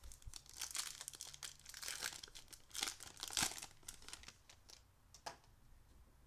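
Foil-lined wrapper of a baseball card pack crinkling and tearing as it is ripped open by hand. The crackling is loudest about three and a half seconds in and dies down after about four seconds.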